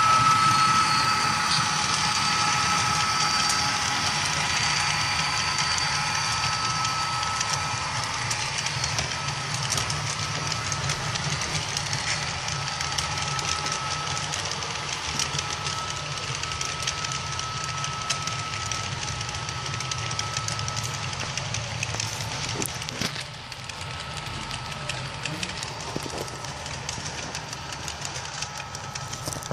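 Model freight train running past: the locomotives' motors whine with steady tones that fade as they pass, over the low rumble and clicking of the cars' wheels on the track. The level steps down about three quarters of the way through.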